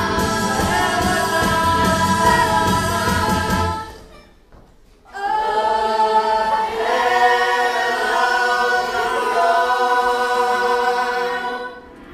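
A musical theatre chorus of many voices singing with accompaniment. The music drops out about four seconds in for about a second, then the chorus comes back on long held chords and fades near the end.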